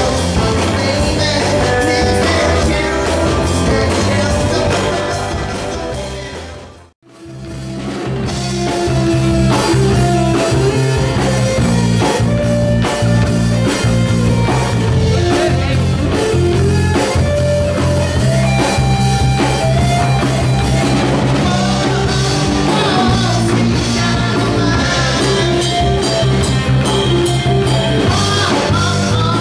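Live rock trio playing: electric bass guitar, electric guitar and drum kit, with a singer. About six seconds in the music fades down to near silence and fades back up within about two seconds, then the band plays on.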